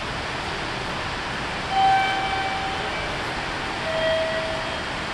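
Steady rushing noise in a subway station, with two short pitched tones about two seconds apart, the second lower than the first.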